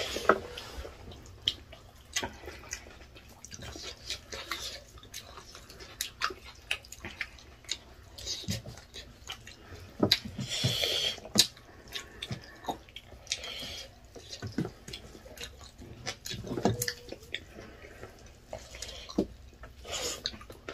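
Close-up eating sounds of two people eating rice and spicy chicken with their hands: wet chewing, lip smacks and slurps in many short irregular clicks, with a longer hissing slurp about ten seconds in.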